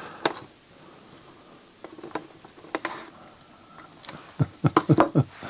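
Scattered small clicks and taps as fingers press a flat ribbon cable and small circuit board into place on a CD drive mechanism, with a quicker run of clicks near the end.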